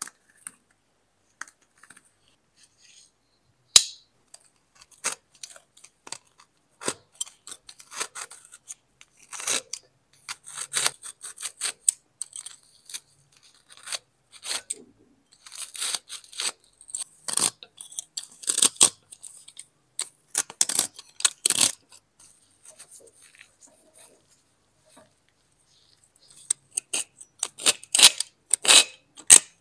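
Irregular short scraping strokes and clicks of hand work on a rusty knife. They come in dense runs, fall quiet for a few seconds, then pick up again briskly near the end.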